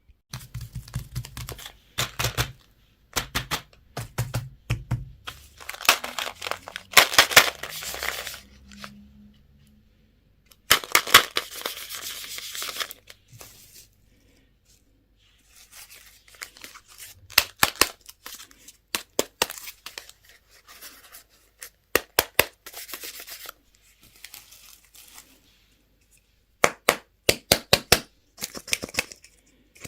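Plastic candy and toy packaging being torn open and crinkled, with many sharp clicks and snaps in between.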